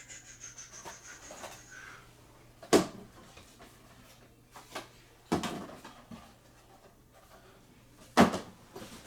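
Handling noises: a quick rustle at the start, then several sharp knocks of things being moved and set down on a tabletop, the loudest near the end.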